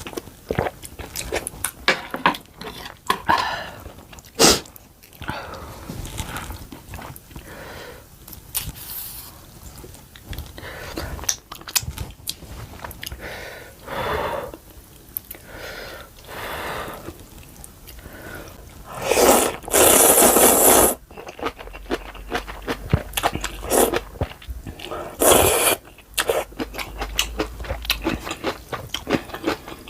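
Close-up eating sounds of spicy ramen and kimchi: steady chewing and crunching with frequent small wet clicks and smacks. Two longer, louder rushes of noise come about two-thirds of the way through.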